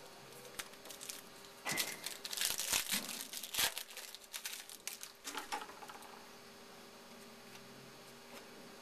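Trading-card pack wrapper crinkling and tearing as it is opened and the cards pulled out: a dense run of crackling from about two seconds in to about four, a few more crinkles near the middle, then quiet handling.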